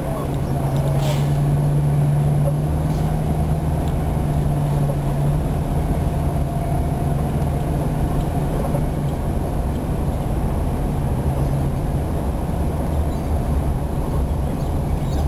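Car engine and road noise heard from inside the cabin while driving: a steady low hum with no break.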